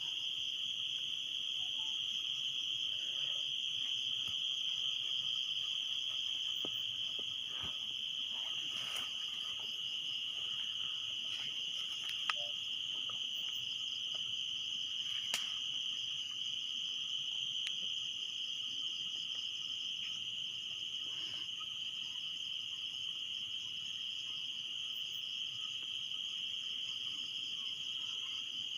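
Steady, unbroken chorus of crickets trilling, with two faint sharp clicks around the middle.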